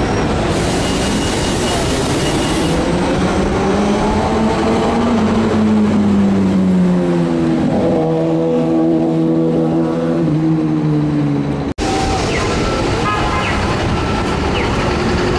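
New Flyer city bus engine and drivetrain running in street traffic. Its pitch climbs and then steps down over several seconds, over steady traffic noise. The sound cuts off abruptly about three-quarters of the way in, then traffic noise resumes.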